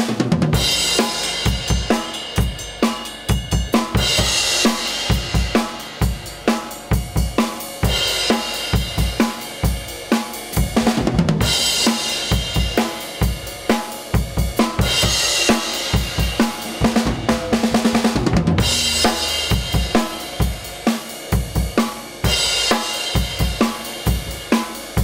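Acoustic drum kit played in a steady groove: kick, snare and hi-hat strikes, with a crash cymbal about every four seconds.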